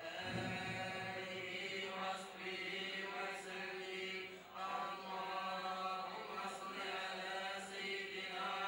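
A group of voices chanting Sufi devotional samaa and madih together, in long held lines broken by brief pauses for breath.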